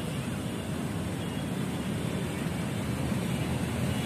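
Steady drone of road traffic from the road beside the lake, with no single vehicle standing out.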